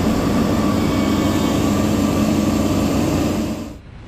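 Semi truck's diesel engine running with a steady low drone, fading out near the end.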